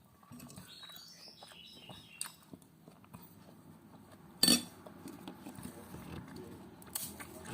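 Close-up eating sounds: chewing, with a spoon knocking sharply against a plate once about four and a half seconds in and a few lighter clinks near the end.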